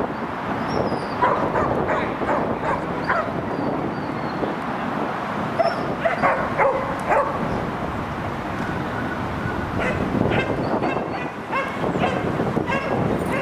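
A Belgian Malinois-type dog barking and yipping in excited bursts, ending in a quick run of short high yips.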